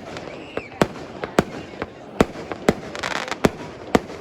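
Fireworks going off: about six sharp, loud bangs of bursting shells with smaller pops between them, and a short crackling hiss a little after the middle.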